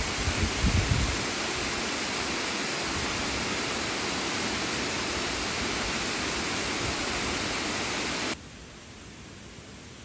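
Waterfall cascading down a shale gorge: a steady rush of falling water, with wind buffeting the microphone in the first second. About eight seconds in it drops suddenly to a much fainter hiss.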